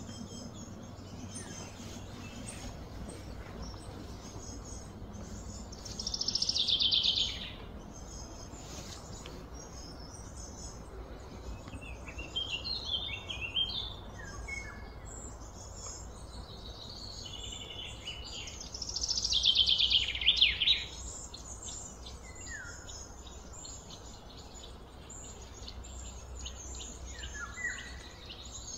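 Outdoor birdsong: birds chirping and calling over a steady low rumble, with a faint high chirring going on throughout. Two louder bursts of song stand out, about six seconds in and again around nineteen to twenty-one seconds, with smaller chirps in between.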